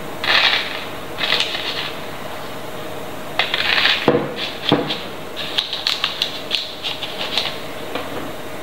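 Dry rice spread by hand onto baking paper over puff-pastry discs in a metal tartlet tin, as a weight for blind-baking: short rustling bursts of grains landing, a couple of dull knocks, then a run of quick clicks.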